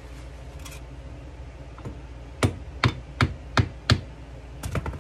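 Five sharp wooden knocks about 0.4 s apart, then two more in quick succession near the end: hands working the freshly glued joint of a chair leg held in a pipe clamp on a wooden workbench.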